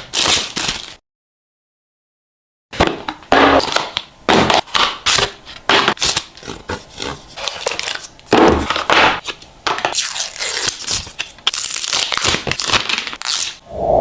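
Phone packaging being handled and unpacked: a quick run of crackles, knocks and scrapes of box and plastic wrapping, with a cut to dead silence for about two seconds near the start and bursts of hissy crinkling later on.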